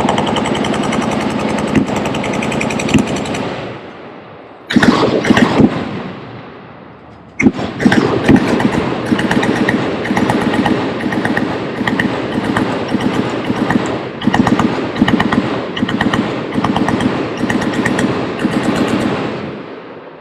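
Automatic machine-gun fire in long sustained bursts: a run that dies away about three seconds in, a short burst around five seconds, then a long continuous stretch of rapid fire from about seven seconds until it tails off near the end.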